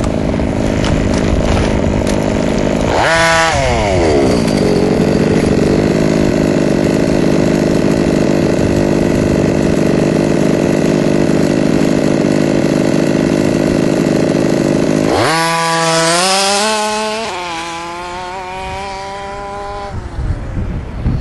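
A small, high-revving engine. It drops in pitch about three seconds in, then runs at a steady pitch for about ten seconds. Near the end it revs up in steps, then its pitch falls and the sound fades.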